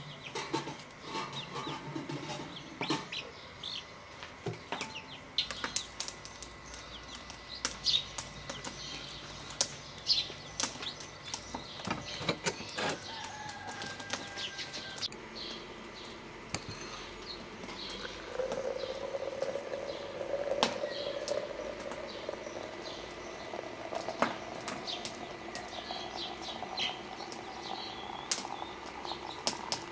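Small birds chirping and chickens clucking, with many short sharp chirps. A little past halfway, hot water starts running steadily from a samovar's tap into a glass French press, its pitch rising slowly as the press fills.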